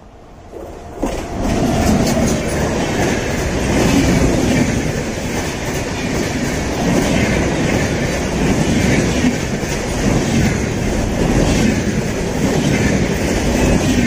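Indian Railways Antyodaya Express, electric-hauled, passing close by at speed: the rush of the locomotive arrives about a second in, then a loud steady rumble with the rhythmic clatter of coach wheels over the rail joints, swelling every second or two as each bogie goes by.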